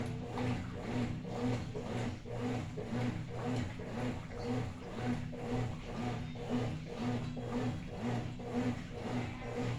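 Consul Facilite 10 kg top-loading washing machine agitating: the motor hums and the agitator swings back and forth about twice a second, churning water and laundry.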